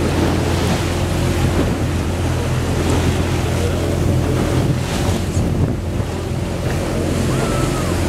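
A boat's motor runs with a steady hum under the wash of choppy sea and surf breaking against a rock. Wind buffets the microphone.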